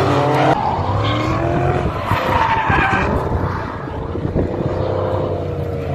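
Drift cars' engines revving up and down while their tyres squeal as they slide sideways through a corner, with a burst of tyre squeal a couple of seconds in.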